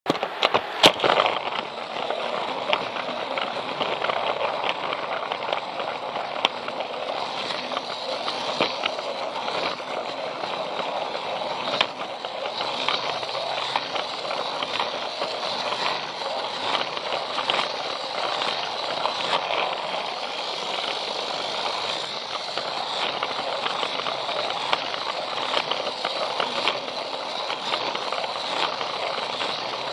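Plarail toy train running along plastic track: a steady whir and rattle from its small motor, gears and wheels, with frequent small clicks.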